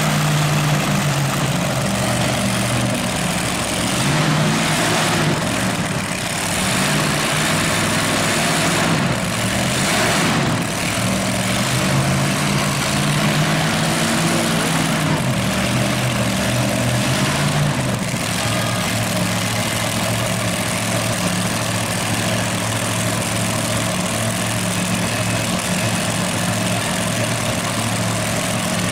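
Heavy tractor engines idling steadily, a low, even rumble with no revving.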